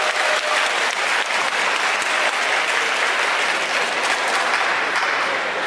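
Crowd of spectators applauding, many hands clapping at once at a steady level.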